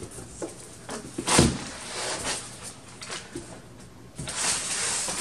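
Things being handled in a cardboard box: crumpled packing paper rustling, with a few knocks, the loudest about a second and a half in.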